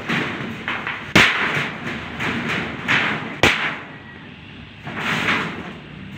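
Corrugated galvanized iron roofing sheet being shifted into place on steel pipe purlins: rustling scrapes of the metal sheet, with two sharp metal knocks a little over two seconds apart.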